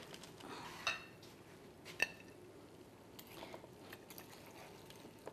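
A metal server scraping and clinking against a metal baking tray as baked macaroni and cheese is dug out and lifted, with a sharp, briefly ringing clink about two seconds in and softer scrapes around it.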